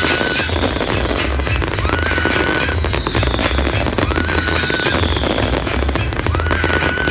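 Fireworks display going off densely: continuous rapid crackling and popping of many bursts at once, with music playing underneath.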